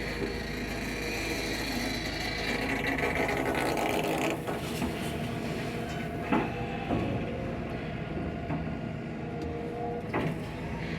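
Heavy construction machinery running steadily, with a few sharp metallic clanks.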